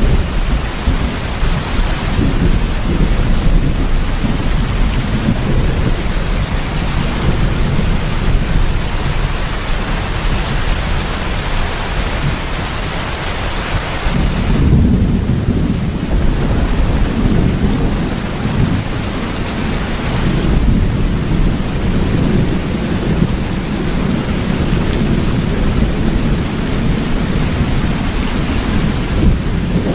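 Steady rain, with a deep low rumble underneath that swells about halfway through.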